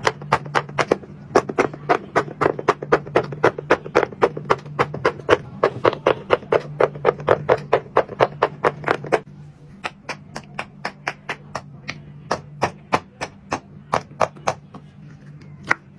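Silicone pop-it fidget toys being popped bubble by bubble with fingers: a fast run of sharp pops, about five a second. About nine seconds in the pops turn quieter and sparser, and a last pop comes near the end. A steady low hum runs underneath.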